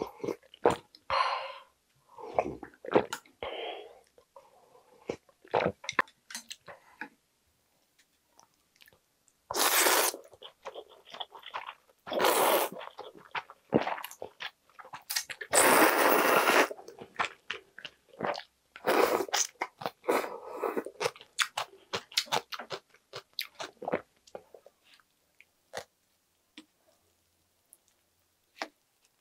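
Close-up eating of cold jjambbong noodle soup: sips of broth from a spoon, then several loud slurps of noodles lasting a second or two each, with chewing and mouth smacks in between.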